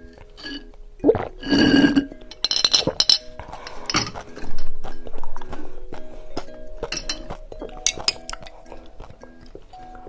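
Drinking sounds through a straw from glass novelty drinking glasses: sipping and slurping, with sharp clinks as the glasses are handled, over background music with a simple repeating melody.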